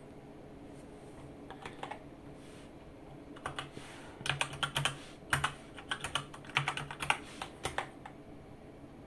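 Keys on a computer keyboard being typed to enter a sign-in PIN: a few scattered keystrokes, then a quick run of clicks through the middle.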